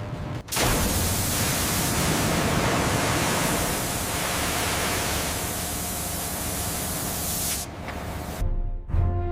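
A loud, steady hiss that starts half a second in and cuts off suddenly about seven and a half seconds in, followed by a low rumble near the end.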